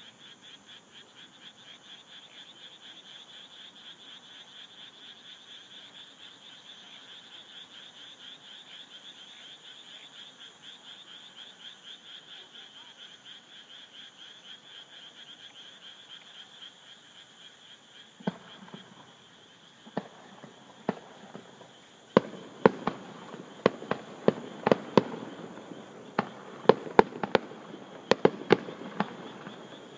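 Frogs calling in a steady, rapidly pulsing chorus. A little past halfway, aerial fireworks begin bursting: a few single bangs, then a quick run of sharp bangs and crackles.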